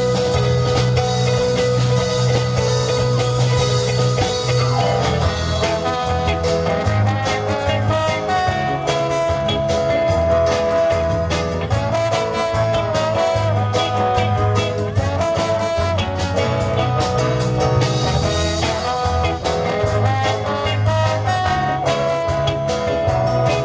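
Live band playing an upbeat, swing-feel number on drum kit, bass, electric guitar, keyboard and a saxophone-and-trumpet horn section. A long held note for about the first five seconds, then a moving melody over the steady bass and drums.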